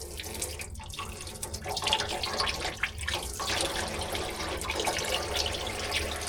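Liquid pouring and splashing steadily, with a crackle of small drips and spatters, a little louder from about two seconds in.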